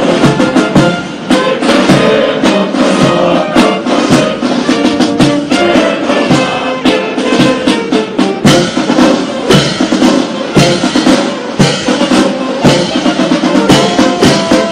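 Brass band playing a march, with snare and bass drum keeping a steady beat.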